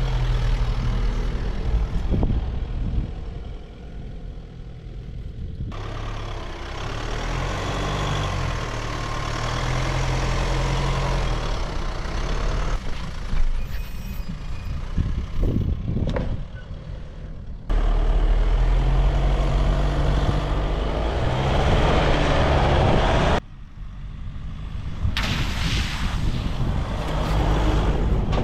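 4WD vehicle driving along an off-road track: engine rumble with tyre and road noise, cut together from several short clips so the sound changes abruptly a few times.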